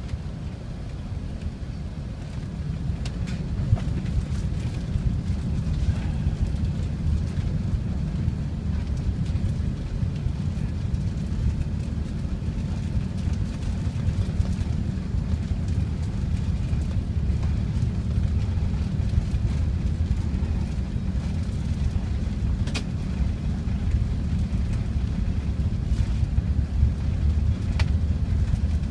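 Deep, steady rumble of an Airbus A380's engines and wheels during the takeoff roll, heard from inside the passenger cabin. It grows slightly louder as the aircraft accelerates, with a few small clicks.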